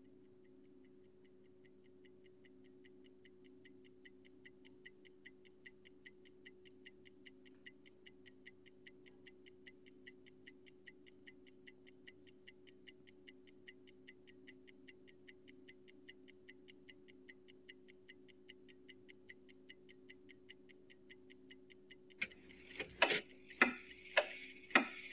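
Steady, quick ticking, like a clock, fading in over a low steady hum, then about five loud sharp knocks near the end.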